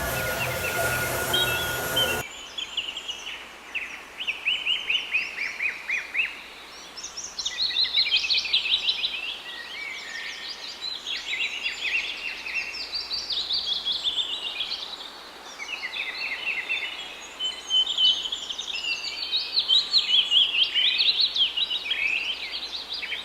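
Birds chirping: quick runs of short, high chirps that overlap and come in waves, louder and softer, after background music cuts out about two seconds in.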